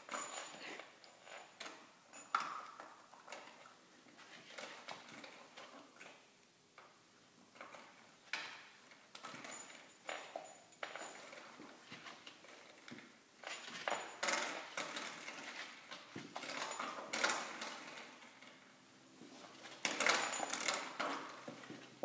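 A metal door spring batted and twanged by an Airedale puppy: irregular metallic rattles and clicks, some ringing briefly, with the loudest clatter near the end.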